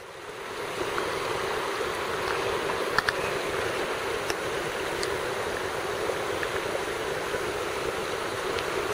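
Mountain trout stream running, a steady rush of water that rises over the first second, with a few faint ticks.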